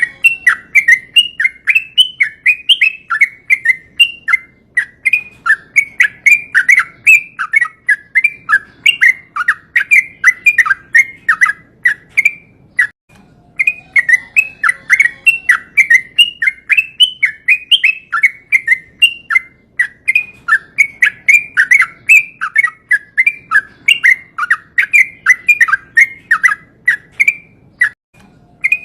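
Yellow-vented bulbul (trucukan) singing its long rolling song: fast, continuous runs of bubbly chirping notes, broken by short pauses twice.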